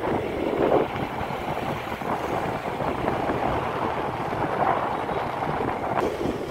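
Steady wind and road noise from a moving motorbike, with wind rushing over the microphone.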